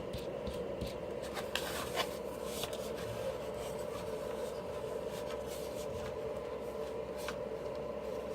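Faint clicks and rubbing as hands handle the plastic parts of a dismantled electric blower, over a steady low hum in the background.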